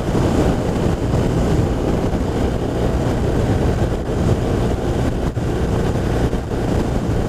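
Steady wind and road noise of a BMW R1200RT motorcycle riding at speed, its flat-twin engine running under it.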